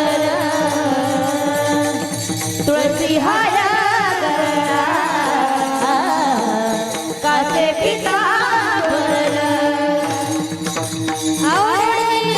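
Marathi devotional kirtan music: a woman singing an abhang in a wavering, ornamented melody over steady held accompaniment tones.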